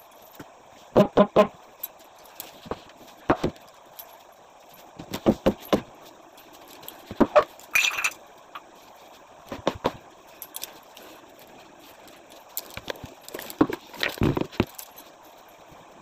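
Household objects being handled and set down during room rearranging: irregular clusters of knocks and clatter, a few seconds apart.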